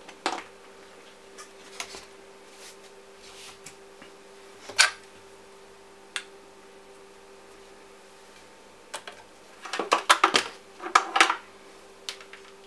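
Scattered clicks and light metallic clinks of a small finned heatsink being set onto a graphics card's GPU and bench gear being handled, with one sharp click about five seconds in and a quick run of clicks near the end, over a faint steady hum.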